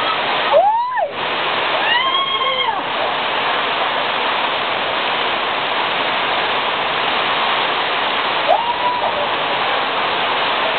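Rainwater streaming and splashing down concrete steps in a steady rush. Short high-pitched voices call out over it about half a second in, around two seconds in, and again near the end.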